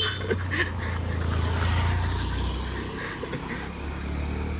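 A low, steady engine hum that eases off a little after the middle.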